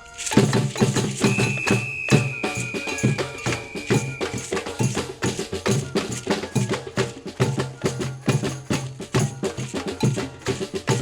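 Brazilian-style percussion ensemble playing a fast, dense groove: rapid sharp strikes over a regular low drum beat. A single high, steady tone is held for a few seconds near the start, over the drumming.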